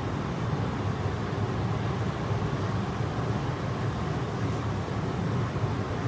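Glassblowing furnace and its burner blowers running with a steady, deep rushing noise.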